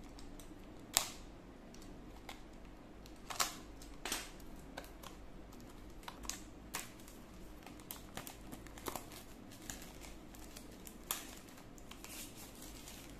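Plastic shrink wrap on a small cardboard box being slit with a utility knife and peeled off by hand: scattered crinkles and sharp clicks at irregular intervals.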